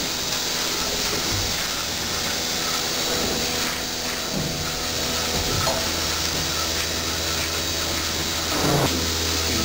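Steady hum and hiss of milking equipment running in a cow barn, most likely the vacuum pump of the milking machine. A brief rising low sound comes near the end.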